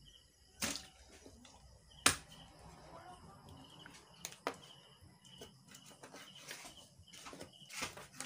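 A kitchen knife cutting squid on a cutting board, giving a few sharp knocks of the blade on the board: the loudest about two seconds in, two more close together around four seconds, and a quick run near the end. Faint high chirps repeat in the background.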